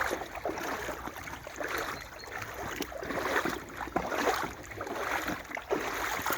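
Wellington boots wading through a shallow brook, the water splashing and sloshing with each stride, roughly one step a second.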